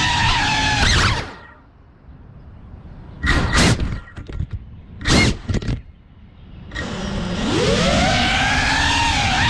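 FPV cinewhoop drone's brushless motors and propellers whining, the pitch gliding with throttle. The whine drops away about a second in, comes back as two short bursts of throttle, then spools up again with a rising whine near the end.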